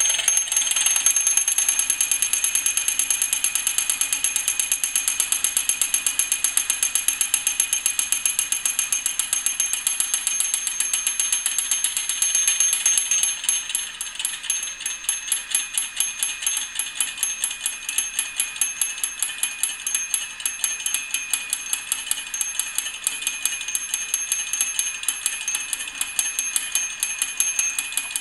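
Warning bell of an antique clockwork rotisserie (tourne-broche) ringing with a rapid, unbroken run of hammer strikes, a little quieter after about halfway. The ringing is its signal that the spring-wound mechanism needs rewinding.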